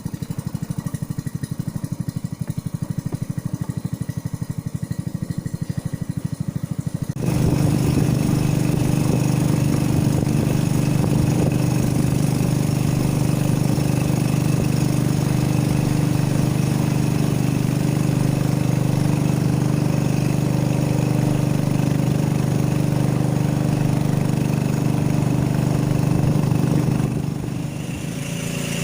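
A small engine running: a low, even putter at first, then about seven seconds in it speeds up and runs louder and steadily at a higher pitch. It eases off briefly near the end and picks up again.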